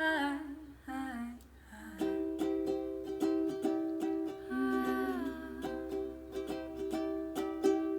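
Ukulele strumming a steady chord pattern, with the last sung note of the chorus trailing off in the first second or so.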